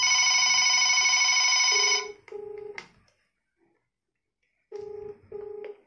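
Panasonic landline's electronic ringer rings for about two seconds, then stops suddenly. A calling mobile phone then plays its ringback tone: two short low beeps, a pause of about two seconds, and two more.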